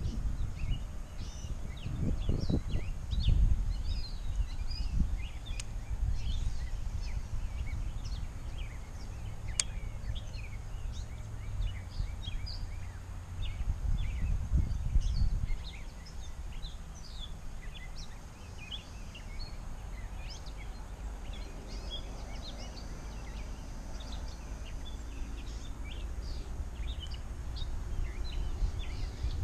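Many birds chirping and singing in quick, overlapping short calls, over wind rumbling on the microphone that is heavier in the first half and eases after about halfway.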